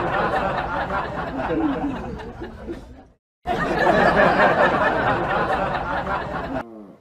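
A dense babble of people's voices with laughter. It fades out about three seconds in, starts again after a short break and cuts off near the end.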